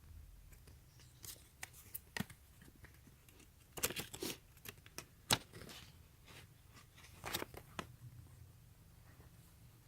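Faint rustling and crinkling of a paper instruction booklet being handled, with scattered soft clicks. The loudest crinkles come about four, five and seven seconds in.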